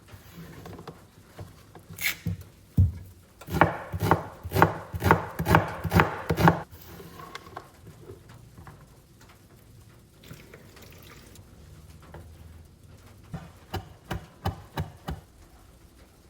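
Knife chopping food on a cutting board: a few strikes, then a steady run of about nine firm chops at roughly three a second, and later a lighter, quicker run of chops.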